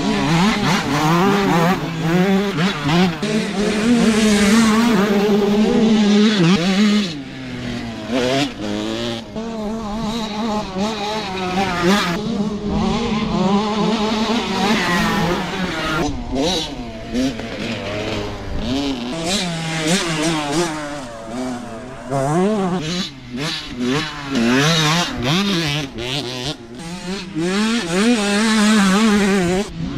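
Several children's dirt bikes run on a dirt track, their small engines revving up and down as the riders open and close the throttle and shift. They are louder while near, with dips about a quarter of the way in and again toward the end.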